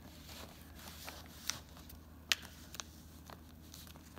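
A sheet of paper being folded and creased by hand: faint rustling with a few sharp crackles, the sharpest about two seconds in, over a steady low hum.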